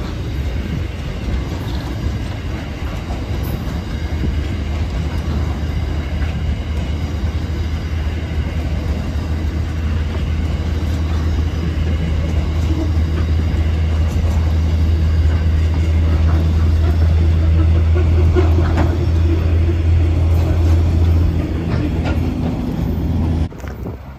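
Loaded grain hopper wagons of a freight train rolling past: a steady low rumble of wheels on rail with faint clicks, building in loudness and dropping off abruptly near the end.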